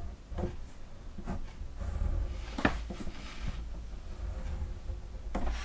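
Scattered soft knocks and clicks of small objects being handled and set down, over a low steady hum; the sharpest knock comes about two and a half seconds in.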